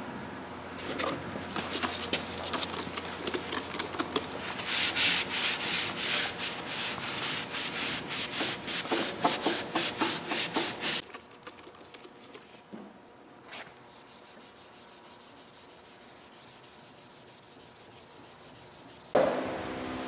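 Shop towel rubbing and scrubbing the solvent-wet steel spindle of a brake lathe in brisk, repeated strokes for about eleven seconds, then a few light clicks. Near the end an electric motor starts up with a steady hum.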